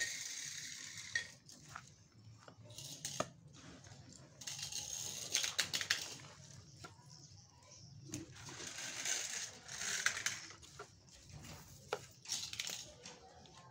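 Dry potting mix of bamboo leaves, twigs and humus rustling as it is scooped by hand and packed into a plastic pot, in several bursts with a few sharp clicks.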